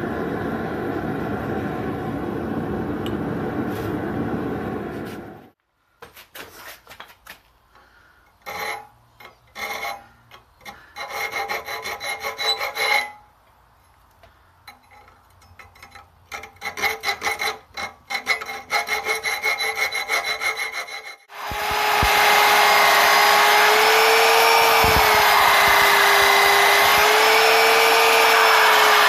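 A steady rushing noise for about five seconds, then short rasping strokes of a hand file working the steel blade of a forged nail clamped in a vise. About 21 seconds in, a belt sander starts and runs steadily with a slightly wavering whine.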